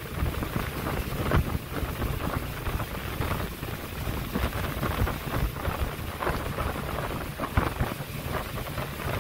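Motor boat running on a river, a steady low rumble with rushing water, while wind buffets the microphone in irregular gusts.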